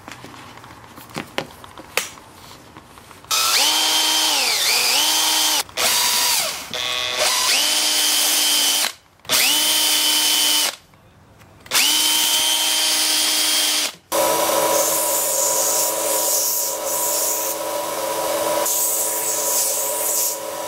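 Power drill whining in a series of short runs, its pitch sagging as the bit bites into the wood. A longer, steadier run follows about two-thirds of the way through.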